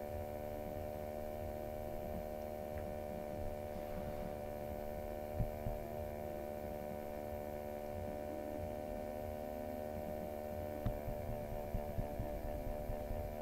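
Steady electrical mains hum, a stack of even unchanging tones over a low rumble, picked up by the microphone. A few faint clicks near the end as the mouse is pressed repeatedly.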